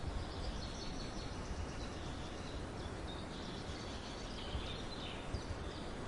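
Faint, high chirps of small birds over a steady low rumbling background noise.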